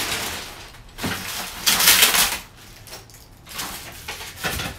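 Plastic packaging crinkling and rustling in bursts as it is pulled and peeled off a board. The loudest burst comes about two seconds in.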